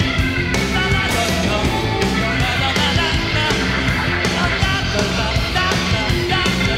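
Rock band playing live on stage: drum kit, electric guitars and electric bass in a loud, steady passage with no clear singing.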